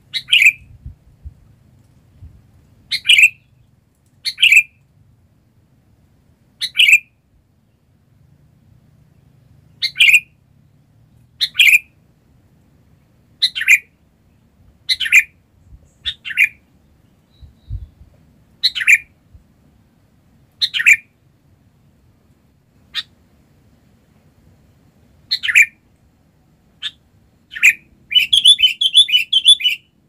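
Sooty-headed bulbul (kutilang) giving short, sharp calls, one every one to two seconds. Near the end they break into a dense burst of rapid harsh notes.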